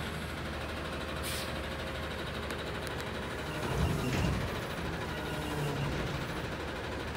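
Natural-gas engine of an Autocar ACX Heil Freedom front-loader garbage truck running steadily at a low hum, with a short hiss about a second in and a louder low rumble about four seconds in.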